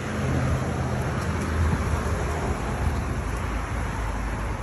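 Steady road traffic noise from cars passing on the street, mixed with low wind rumble on the microphone.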